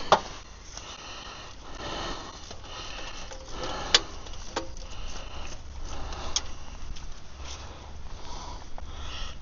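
A few sharp metallic clicks and knocks of hand tools on the starter motor bolts, over steady rain hiss and the mechanic's sniffing and breathing.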